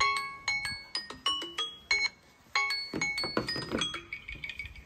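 Smartphone alarm tone: a melody of bright, chiming, bell-like notes, breaking off briefly a little after two seconds in before the chimes resume.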